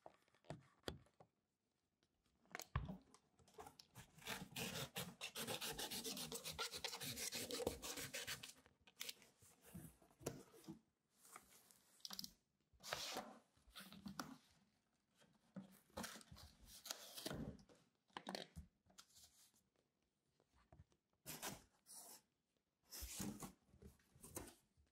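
Cardboard being cut and torn by hand to make a box into a cat litter box: a long rasping stretch early on, then a string of shorter rasping and tearing strokes.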